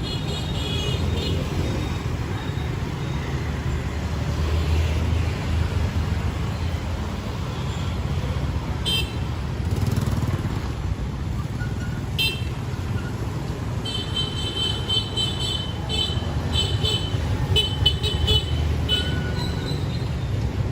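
Busy street traffic of motorbikes and cars: a steady engine rumble with frequent short horn toots. There is a cluster of toots at the start, two single ones midway, then a quick run of repeated beeps through the last third.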